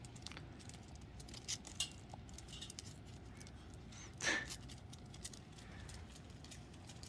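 Faint scuffling, clicks and rattles of Jindo dogs playing, with a brief louder rustling burst about four seconds in.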